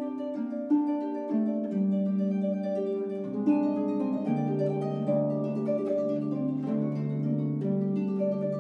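Solo concert harp playing, plucked notes ringing on over one another, with deeper bass notes held underneath from about halfway through.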